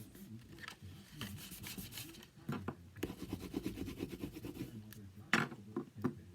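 Paper and cardstock being handled and rubbed on a craft table: scratchy rustling, a fast even run of clicks for a second and a half about three seconds in, and a sharp snap or tap near the end.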